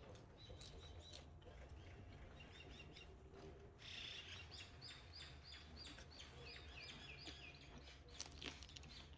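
Faint bird chirps, a quick run of short repeated notes in the middle, over low steady background noise, with a couple of sharp clicks near the end.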